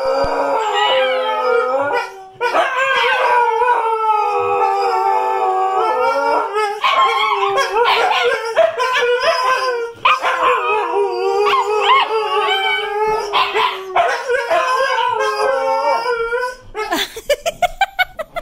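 Siberian huskies, adults and a puppy together, howling in several overlapping, wavering voices, with two brief breaks. Near the end the howl gives way to a quick run of short yips.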